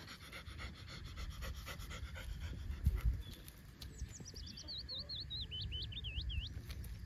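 A puppy panting in quick, rhythmic breaths for the first few seconds, then a run of rapid high chirps near the end.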